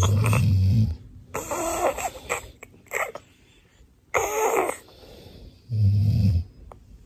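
A man's deep snore, answered by a baby's higher-pitched imitations of it, then another deep snore about six seconds in.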